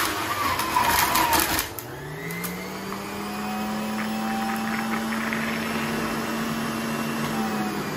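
Electric juicer grinding fruit pushed down its feed chute, with loud crunching and clatter for about the first second and a half. Then the motor speeds up with a rising hum and runs steadily once the fruit is through.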